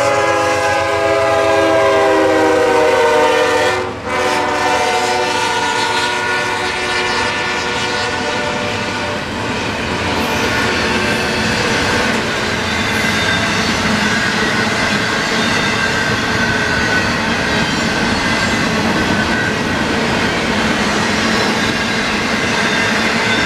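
CSX diesel freight locomotive's air horn blowing loud, breaking off about four seconds in, then sounding again a little lower and fading as the locomotive goes by. After that comes the steady rumble and clatter of intermodal well cars rolling past.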